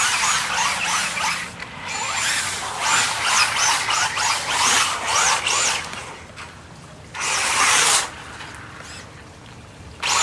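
Traxxas Rally VXL RC car's brushless motor whining up and down in pitch with repeated throttle bursts as it drives, after being submerged in a gutter and still working. There is a loud burst of rushing noise about seven seconds in.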